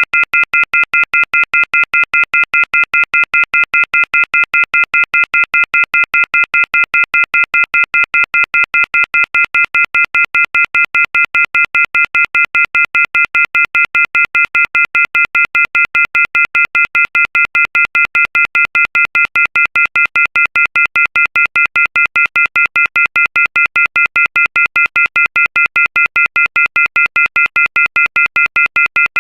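Telephone receiver off-hook warning tone: a loud, harsh chord of several high tones pulsing on and off rapidly and evenly, the signal that a handset has been left off the hook.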